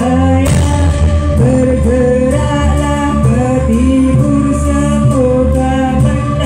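Loud live music accompanying a Javanese jaranan (horse-and-barongan) dance show: a singer's wavering melody over drums and a steady deep bass, with an even beat.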